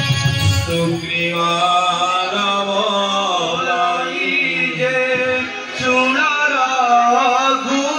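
Live jatra theatre music: a male voice singing a wavering melody over steady keyboard accompaniment, with low drumming in the first second.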